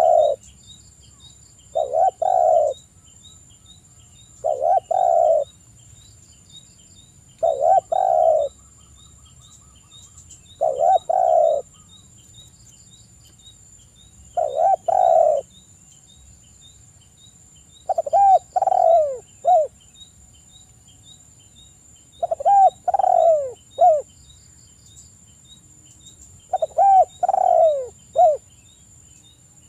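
Spotted dove cooing: a short phrase of low coos about every three to four seconds, nine phrases in all. The later phrases break into separate notes, the main one falling in pitch, followed by a short final coo.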